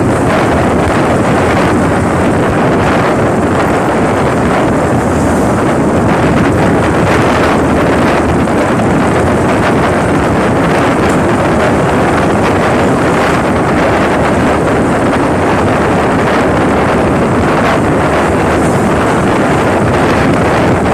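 Loud, steady wind buffeting the microphone of a phone carried on a moving motorcycle, with the motorcycle's engine and road noise beneath.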